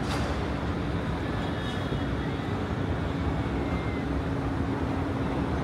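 Outdoor street noise with a steady engine hum from passing traffic.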